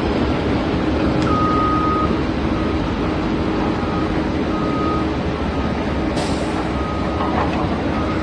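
Steady heavy truck engine noise with a high beep sounding on and off like a reversing alarm; the first beep, about a second in, is the longest.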